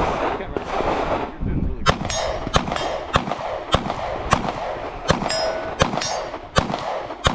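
A string of about ten handgun shots fired at a steady pace, starting about two seconds in, with a metallic ring after several of them.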